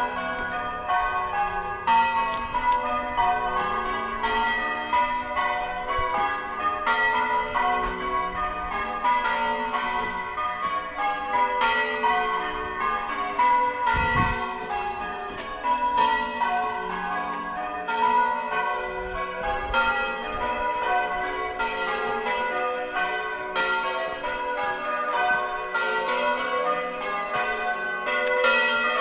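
Church tower bells in English change ringing: a continuous, evenly paced run of bell strikes, each bell's ring overlapping the next.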